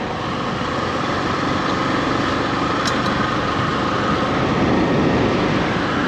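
Motorcycle running steadily at road speed: an even engine drone mixed with road noise, with a faint steady whine over it.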